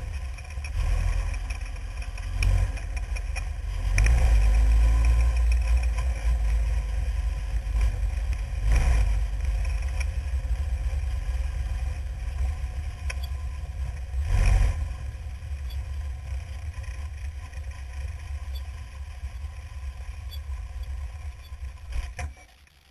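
Formula Renault single-seater's Renault engine heard from an onboard camera, running at steady low revs as the car rolls slowly, with two short loud rushes of noise about 9 and 14 seconds in. Near the end the engine cuts off suddenly as the car comes to a stop.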